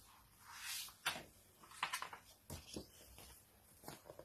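Pages of a paperback picture book being turned and handled: a few soft paper rustles and light taps.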